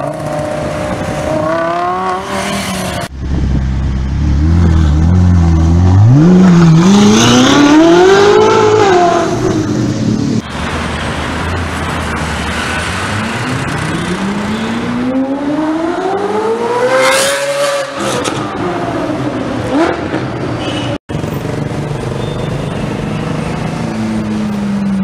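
Supercar engines revving hard as the cars accelerate past, in a run of short clips. The engine note climbs steeply in long rising sweeps, the loudest about four to nine seconds in and another around fourteen to seventeen seconds in, with abrupt cuts between clips.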